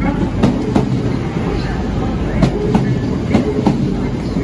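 Northern Class 158 diesel multiple unit running past at close range: a steady rumble with its wheels clicking over rail joints, the clicks coming in quick pairs as each bogie crosses.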